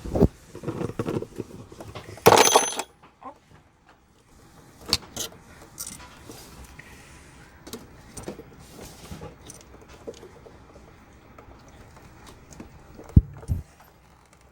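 Pliers clinking and scraping against an old electrical receptacle and its wires while pulling a wire from the push-in terminal, with one loud clink about two seconds in, then scattered small clicks and taps.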